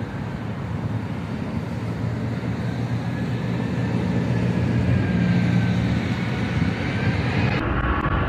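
Airbus A380's four Rolls-Royce Trent 900 turbofan engines on final approach. A steady jet rumble with a faint, slowly falling whine grows gradually louder as the aircraft comes nearer.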